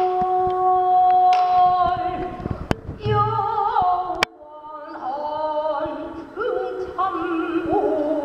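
Female pansori singing: a long held note, then wavering, heavily ornamented lines. Two sharp strokes on the buk barrel drum from the accompanying drummer fall in a short break near the middle.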